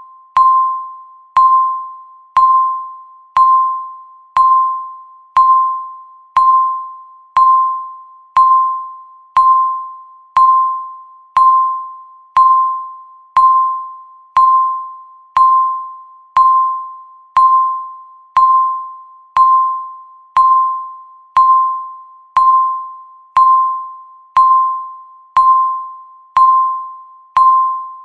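Countdown timer beeping once every second, each beep a single high tone that starts sharply and fades away before the next.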